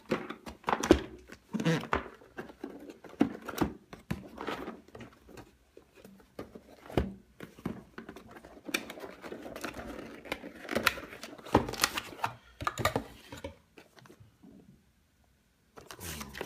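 Cardboard box and paper leaflets being handled and unpacked: irregular rustling and scraping with short knocks and clicks, dropping to near silence for about two seconds near the end.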